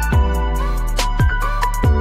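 Background music with a steady beat: deep kick drums that slide down in pitch, quick hi-hat ticks and a held bass note under a sustained melody.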